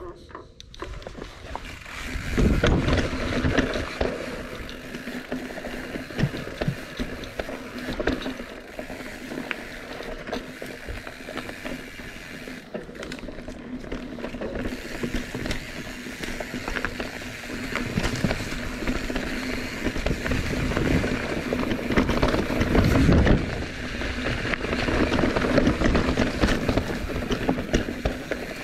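Bicycle being ridden over a rough surface: constant rattling and clicking from the bike and its drivetrain over tyre noise, with a steady low hum. It grows louder in surges around two seconds in and again past twenty seconds.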